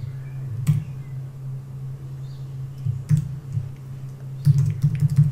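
Computer keyboard typing: a few separate keystrokes, then a quicker run of keys near the end, over a low steady hum.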